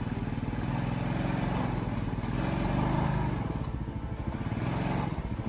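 Honda Rubicon 520 ATV's single-cylinder engine revving up and easing off under load as the quad crawls over a rutted, muddy trail, with the revs climbing about a second in and again near the end.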